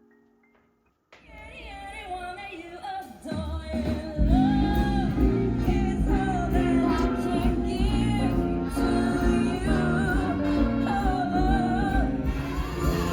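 Background music: a song with a singing voice fades in about a second in after a brief silence, and a bass line and steady beat join about three seconds later.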